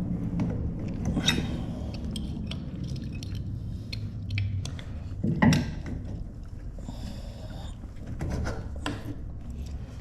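Metal clinks and clicks of tools and bolt hardware being worked on a rolling toolbox's wheel mount, with one louder knock about five and a half seconds in.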